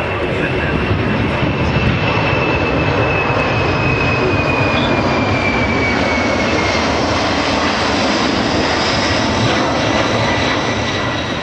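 Boeing C-17 Globemaster III's four turbofan jet engines at high power on a low display pass: a steady, loud jet roar with a high whine that slowly falls in pitch over the first half.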